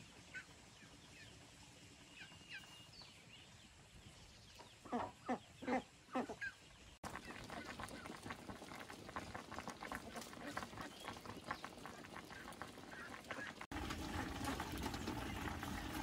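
Domestic waterfowl honking about five times in quick succession around five seconds in, with faint small-bird chirps before. Then a wood fire crackling in a stone cooking stove, louder near the end.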